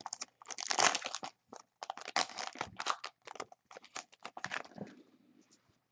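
Foil trading-card pack wrapper crinkling and tearing as it is ripped open by hand, an irregular run of crackles that stops about five seconds in.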